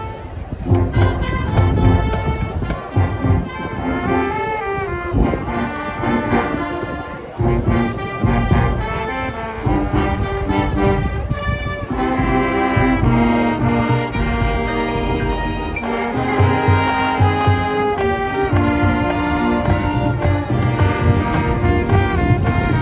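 High school marching band playing its field show: brass (trumpets and trombones) over pounding drums, the full band growing thicker and louder about halfway through.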